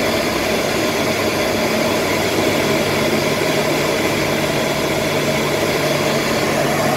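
Steady noise of an aircraft's engines and rushing air heard from inside the cockpit during the landing approach, with a low steady hum joining about two and a half seconds in.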